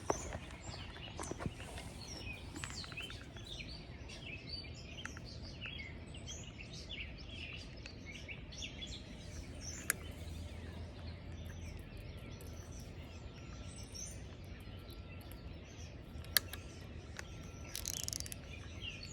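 Several birds chirping and singing over a low, steady outdoor background hum, with two sharp clicks about ten and sixteen seconds in.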